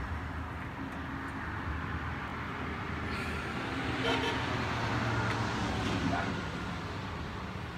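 Road traffic noise: a steady low hum, swelling about four seconds in and easing off after about six, as of a vehicle going past.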